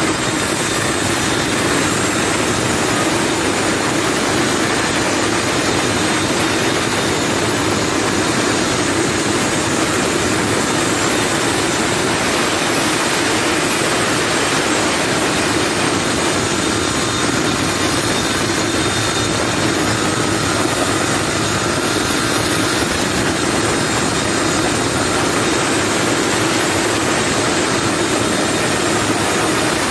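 Handheld electric circular saw ripping lengthwise along a long wooden plank: a loud, steady cutting noise that kicks in suddenly and holds an even level without a pause.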